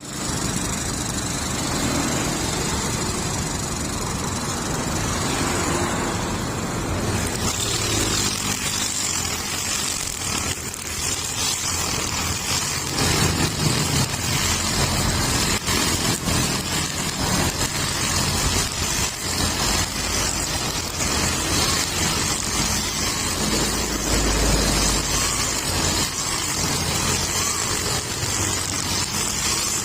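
Honda GX35 four-stroke brush cutter engine running steadily, spinning a nylon string trimmer head. About seven seconds in, the sound turns brighter, with more high-pitched hiss.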